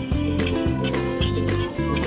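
Background music with a steady beat, plucked guitar and a bass line.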